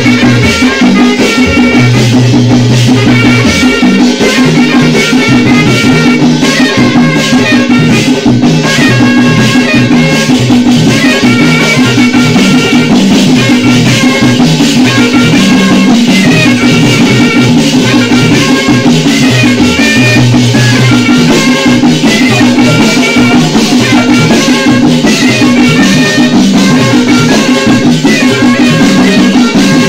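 Duruma traditional marimba music played loud and without pause: short repeated marimba notes over changing bass notes, with a dense rattle of shakers and a drum.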